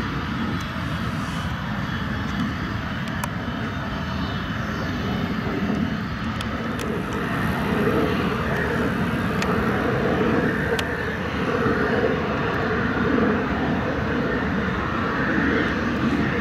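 Jet engines of a taxiing four-engined Boeing 747SP, a steady rushing run that grows louder about halfway through.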